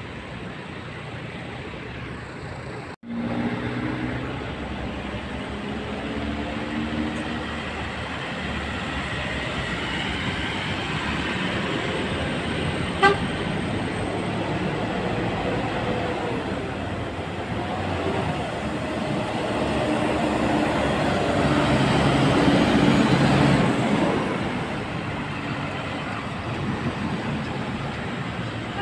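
Indonesian bus telolet horn, the multi-tone musical air horn, playing short melodic phrases twice, about 3 seconds in and again about 21 seconds in, over the steady running noise of buses and traffic that swells as a bus passes.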